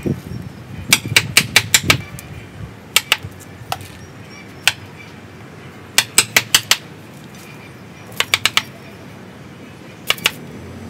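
Wood chisel cutting into the trunk of a ficus bonsai: short runs of sharp clicks, several a second, with pauses between.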